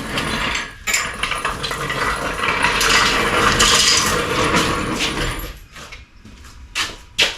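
Metal parts and hand tools clattering and rattling as they are sorted or rummaged through, with sharp clinks about a second in and near the end.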